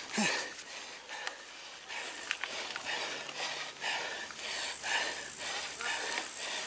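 Mountain bike rolling along a leafy dirt trail, with the rider's heavy breathing in rhythmic puffs, about one and a half a second, close to the microphone, and a few sharp rattling clicks from the bike.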